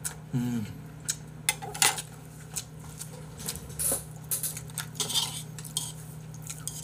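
Metal serving tongs and eating utensils clinking and tapping against noodle bowls: a string of sharp, irregular clinks scattered through, the loudest about two seconds in.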